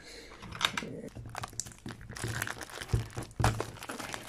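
Clear plastic wrapping crinkling on a coil of speaker wire as it is handled, with scattered small clicks and a few light knocks.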